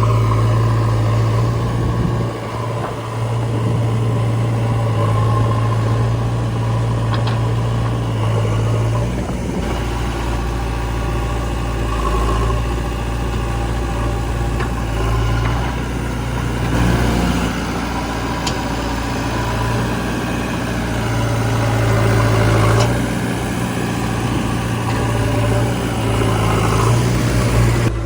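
Heavy diesel engine of working machinery running steadily, its note shifting and dipping about ten seconds in, then strengthening again later.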